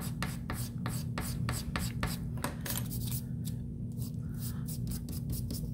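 A stick of chalk scraped across paper in quick, short strokes, several a second, growing sparser after about three seconds.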